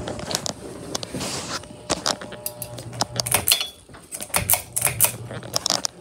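SMC U42 ceiling fan running, a low motor hum under a string of irregular clicks and rattles, with a quieter moment around the middle.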